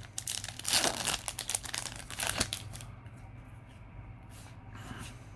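Foil booster-pack wrapper being torn open and crinkled, busiest in the first two and a half seconds, then fainter rustling as the wrapper and cards are handled.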